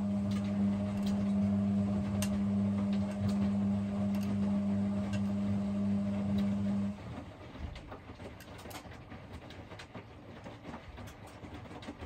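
Hoover H-Wash&Dry 500 washer-dryer in its cottons main wash: the drum motor runs with a steady low hum while the wet load tumbles. About seven seconds in, the hum stops and only faint sloshing and light ticks from the drum are left, as it pauses between turns.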